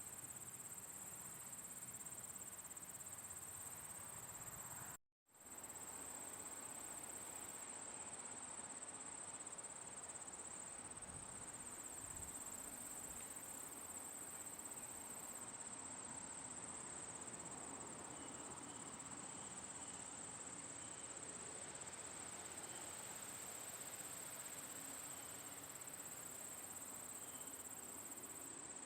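Crickets trilling in a steady, unbroken high-pitched chorus, with a soft hiss of outdoor air beneath. The sound cuts out completely for a split second about five seconds in, then resumes unchanged.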